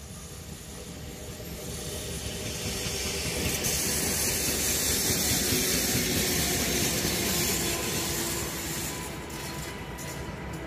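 Two coupled diesel locomotives running as a light-engine train pass along the rails. Their engine rumble and the hiss of wheels on rail build up, are loudest in the middle, then ease off as they draw away.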